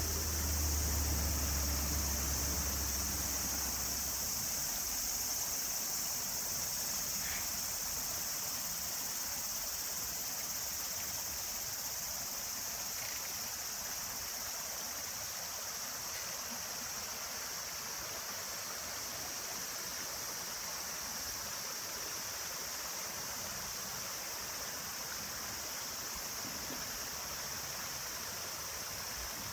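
Steady high-pitched chorus of insects, with a shallow rocky stream running over stones beneath it and a low rumble during the first few seconds.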